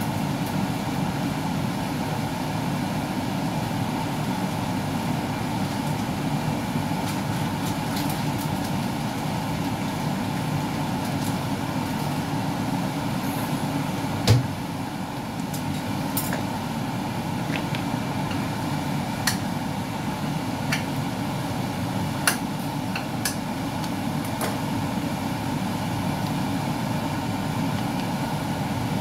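Steady rushing noise of a gas stove burner heating a clay pot of simmering broth, with scattered small pops and clicks. One louder knock comes about halfway through.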